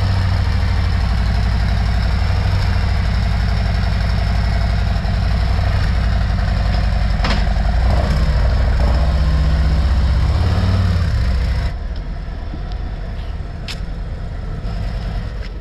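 Harley-Davidson Road Glide's V-twin engine idling steadily, just after starting. About twelve seconds in the engine sound drops away sharply.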